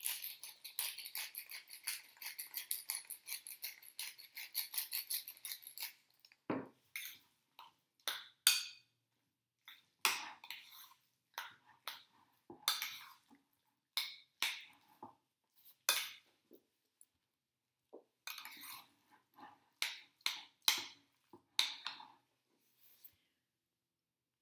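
Seasoning dispensed from a small glass grinder-type container with a fast, continuous rattle for about six seconds. Then a utensil scrapes and clinks against a bowl in separate strokes as guacamole is mixed.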